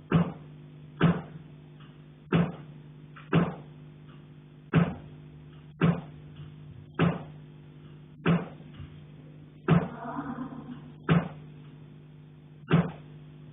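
Someone striking a pipe, heard through the building: a long, even series of hard metallic knocks, about one blow every second and a bit, each with a short ringing tail, over a steady low hum.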